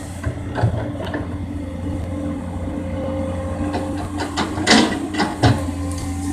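Komatsu PC200 excavator's diesel engine running steadily, with several sharp clanks and knocks from the machine at work. The loudest come a little under five seconds in and again about half a second later.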